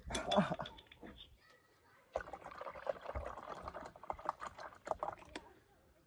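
Water glugging and splashing out of an upturned plastic water bottle into a drip coffee maker's reservoir, starting about two seconds in and lasting about three seconds. A short, louder sound comes right at the start.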